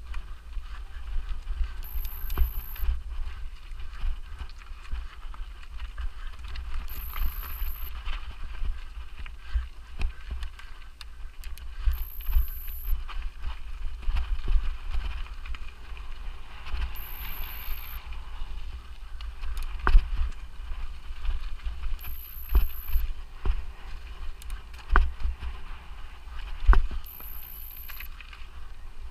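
Mountain bike ridden fast over a forest trail: tyres hissing on dirt with frequent sharp rattles and knocks from roots and rocks jolting the bike, over heavy wind rumble on the microphone. A short, faint high-pitched tone recurs about every five seconds.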